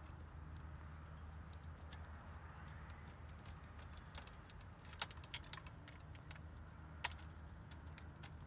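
Faint, scattered small metallic clicks and ticks as a barrel adjuster and its shift cable are threaded by hand into a road bike's rear derailleur, with a few sharper clicks in the second half, over a low steady hum.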